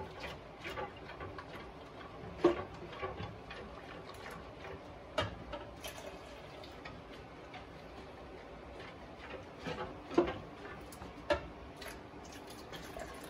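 Metal balloon whisk clinking and scraping against a bowl in irregular sharp clicks while hot milk is whisked into egg yolks for custard.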